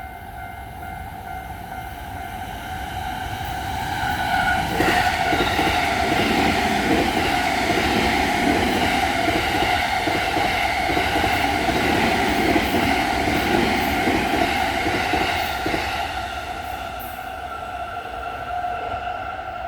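An electric train passes over a level crossing while the crossing's warning bell keeps ringing. The train comes in loud about five seconds in with a clack of wheels and fades from about sixteen seconds.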